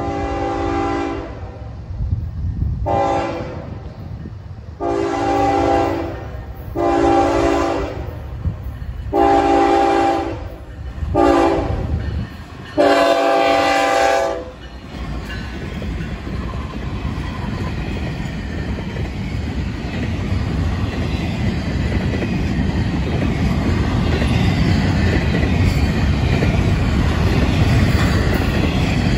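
The multi-note air horn of a Florida East Coast Railway GE ES44C4 locomotive sounds seven blasts, long and short, as it approaches and crosses a grade crossing. The last blast is held longest. After the horn stops, the double-stack intermodal cars roll past with a steady rumble and clatter of wheels on rail that grows louder toward the end.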